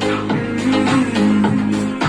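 Music with guitar, bass and drums playing through a homemade two-transistor amplifier into an 8-inch speaker, with a steady beat and no mains hum.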